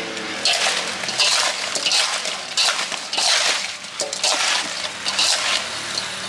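Metal spoon tossing and stirring small green fruits coated in sugar, salt and chili in a large metal bowl: repeated wet scraping and clattering sweeps, roughly one a second.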